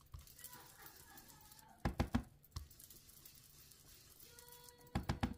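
Two short runs of quick light taps, about two seconds in and near the end: a round ink blending tool dabbing green ink through a plastic decorative mask onto cardstock.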